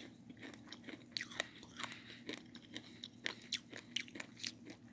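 Faint crunching and chewing of a Choward's Guava candy in the mouth: short, irregular crunches, several a second.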